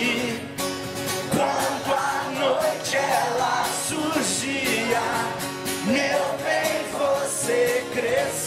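Rock band playing live with singing, a steady drum beat under the vocal line.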